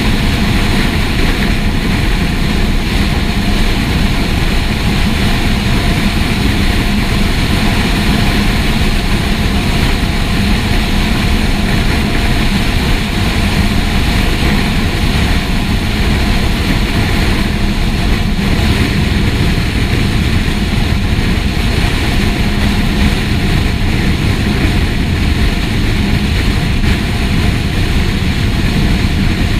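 TLF 16/24 tanker fire engine driving: its heavy engine runs with a steady drone, mixed with road and wind noise. The siren is off.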